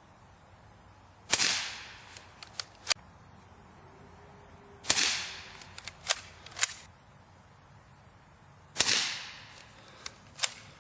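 A Remington 12C pump-action .22 rimfire rifle fires three shots, about three and a half to four seconds apart. After each shot come a few quick clacks as the pump slide is worked to eject the case and chamber the next round.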